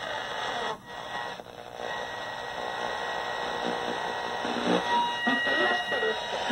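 Small speaker of a 1984 RCA AXR054W TV/radio playing hiss and garbled audio. About five seconds in, a steady tone of about 1 kHz comes through: the audio carrier from a signal generator at 87.7, reproduced as a clear tone by the repaired speaker.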